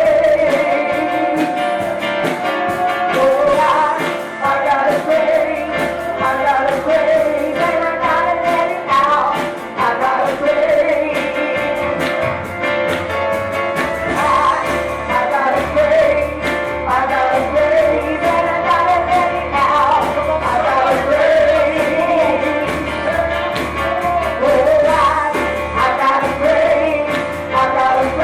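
Church worship music: a band playing with voices singing, over a pulsing bass.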